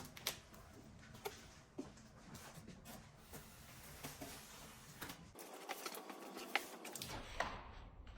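Faint handling noises of packaging being opened: scattered soft clicks, taps and rustles of box and paper.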